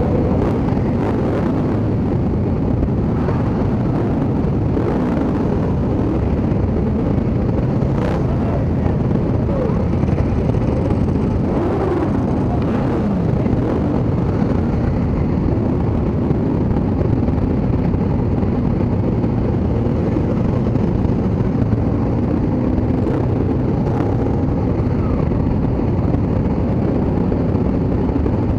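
A large group of motorcycles riding slowly together, many engines running at once in a dense low rumble, with pitch rising and falling now and then as bikes rev, and a few sharp clicks.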